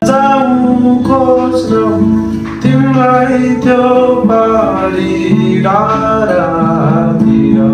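A man singing a melody while playing an acoustic guitar.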